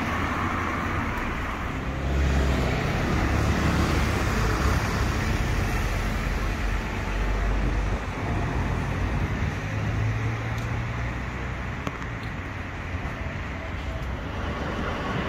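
Road traffic passing on a street: a steady rumble of vehicle engines and tyres that swells and eases as vehicles go by.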